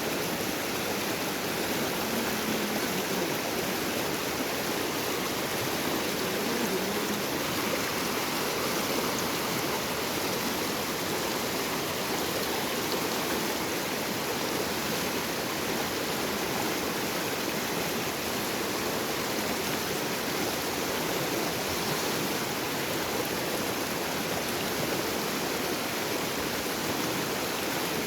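Small river's water flowing in a steady, continuous rush.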